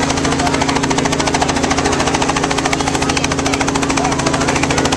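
Small helicopter running on the ground with its main rotor turning at speed: a steady, rapid chop of the blades over a constant engine hum.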